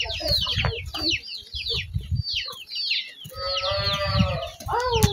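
Chickens calling: a busy run of short, high, falling cheeps, typical of chicks peeping. About three seconds in comes one longer, held call from an adult bird.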